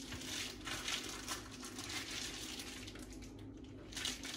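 Plastic-wrapped pork roast package crinkling as it is handled while its juices are drained off. It comes as faint, irregular rustles, loudest about a second in and again near the end.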